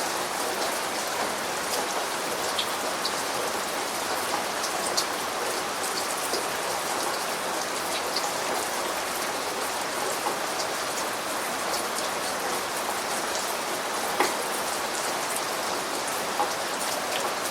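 Steady rain falling, an even hiss with many individual drops ticking sharply on a surface; one louder drop stands out about fourteen seconds in.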